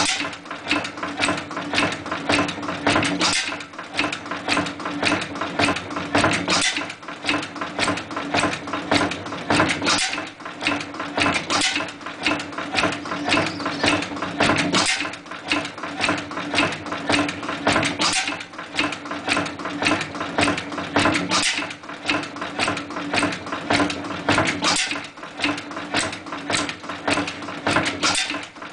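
Invincible hot bulb stationary oil engine, thought to be built by H. Widdop, running steadily: a continuous clatter of knocks and clicks with a louder beat about once a second over a steady hum.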